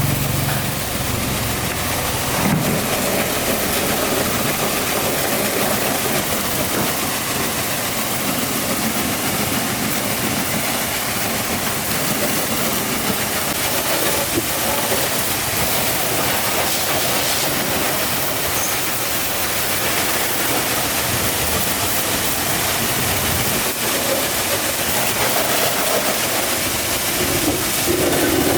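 A steady, even hiss of spraying water that runs without a break.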